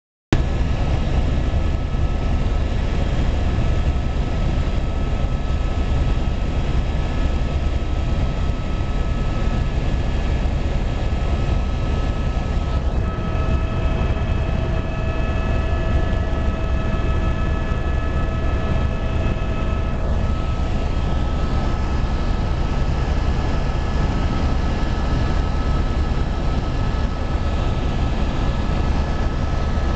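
Medical helicopter in flight heard from inside the cabin: the steady, loud drone of its engine and rotor, with a steady high whine over it. About halfway through, a few extra whining tones join in for several seconds and then drop out.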